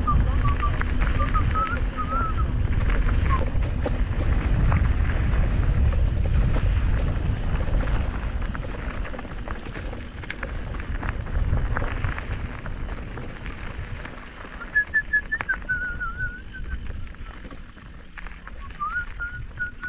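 Mountain bike riding down a trail: low wind rumble on the microphone with scattered rattling clicks from the bike. A short wavering whistle comes in at the start, again about three-quarters of the way through, and just before the end.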